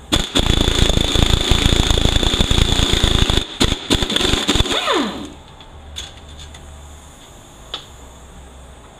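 Air impact wrench with a 3/8 12-point socket rattling out bolts on a 4L80E transmission, hammering rapidly over a steady high whine for about five seconds with a brief pause, then spinning down with a falling tone when the trigger is released. A few light ticks follow.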